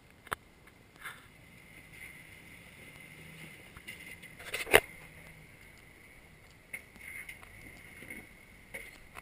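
Sharp knocks and rubbing on an action camera, the loudest knock about halfway through, over a faint low hum from a Jeep's engine.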